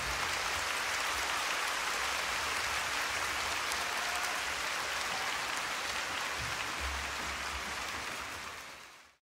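Concert audience applauding, a steady dense clatter of many hands that fades out near the end.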